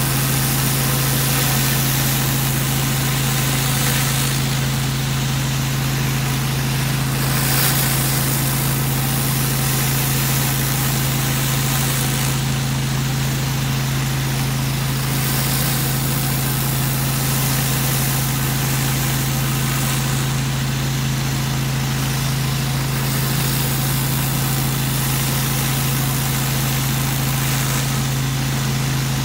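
Pressure washer engine running at a steady pitch, with the high hiss of water spraying from a surface cleaner; the hiss swells and fades about every eight seconds.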